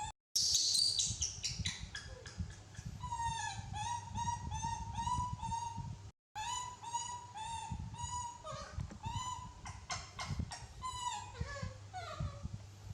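An animal giving many short, high-pitched cries in quick succession, each one rising and falling in pitch.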